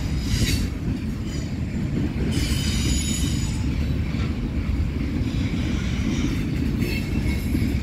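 CSX freight train cars rolling past with a steady low rumble, their wheels squealing in short spells, several times over.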